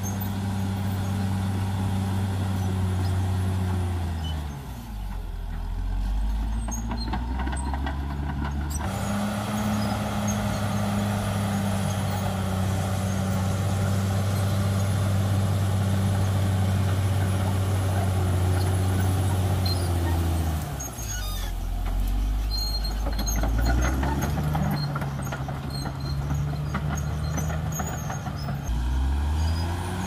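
Caterpillar D6R XL bulldozer's diesel engine working under load, a steady deep hum. Twice the engine note drops to a low rumble and then climbs back up.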